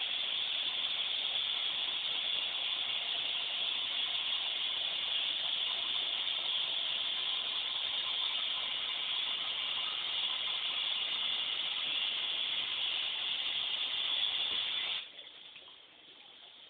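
Bathtub tap running in a steady stream, shut off abruptly about fifteen seconds in, after which only faint small clicks remain.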